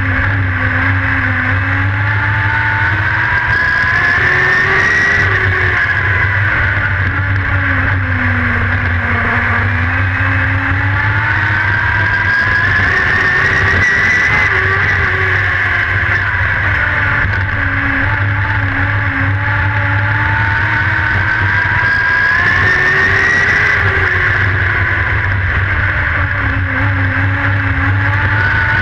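Dirt-track race car's engine heard from inside the cockpit, running continuously as the car laps the oval. Its pitch climbs slowly and falls back again in long swells about every nine seconds.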